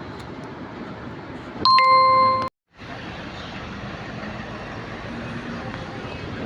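A single loud electronic beep lasting under a second, clean and steady in pitch, over a steady background hum of the workshop; the sound cuts out abruptly for a moment just after the beep.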